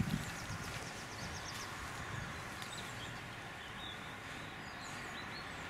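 Small birds calling over a steady outdoor hiss: a fast trill of repeated high notes, about nine a second, in the first second and a half, then scattered high chirps.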